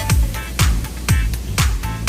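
Background electronic dance music with a steady kick drum at about two beats a second over a bass line.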